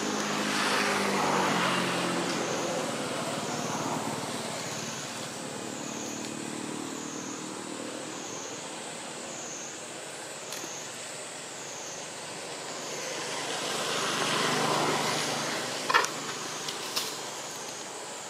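Motor vehicles passing: one fades away over the first few seconds and another swells and fades about three-quarters of the way through, both over a high, evenly pulsing drone that stops a little before the second pass. A sharp click comes near the end.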